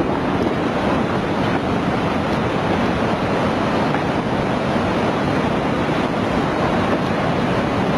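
Tsunami floodwater surging through a street: a steady, loud rushing of churning water and debris.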